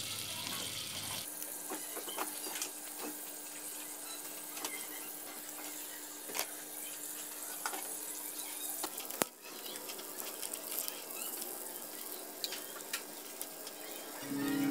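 Scallops sizzling and bubbling in their half-shells with scallion oil over a charcoal grill: a steady hiss with scattered small crackles and pops.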